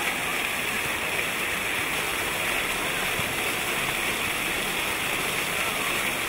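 Water from many fountain jets spraying up and splashing back down, a steady rushing of water.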